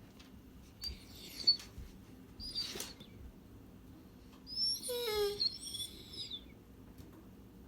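A pet bird singing: a few short high whistled calls, then about four and a half seconds in a longer warbling phrase whose notes step down in pitch. A sharp click about a second and a half in is the loudest sound.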